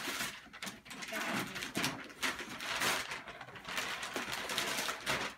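Gift wrapping paper rustling and tearing in irregular crackling bursts as a boxed present is unwrapped and the cardboard box is handled.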